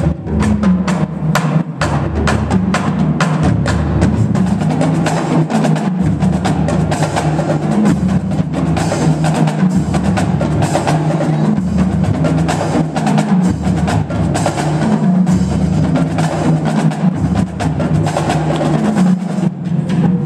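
Marching drumline playing a fast, continuous cadence: snare drums, tenor drums and a line of bass drums, with dense rapid sticking.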